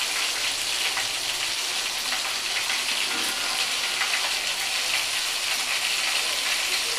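Hot oil sizzling and crackling steadily in a cooking pan.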